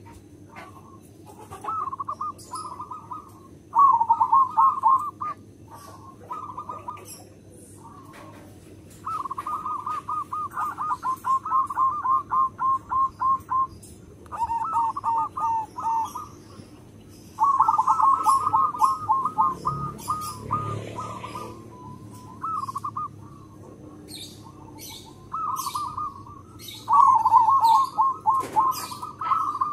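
Zebra dove (perkutut) singing: phrase after phrase of rapid, rolling coos, each lasting one to four seconds with short pauses between. Small birds chirp faintly in the background.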